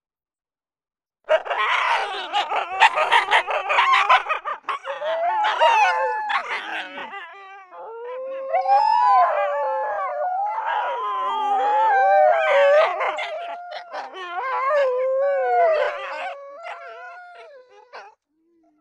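A pack of canines howling. After about a second of silence come dense, overlapping yips and barks, then from about 8 s several overlapping howls that waver and glide up and down in pitch, fading near the end.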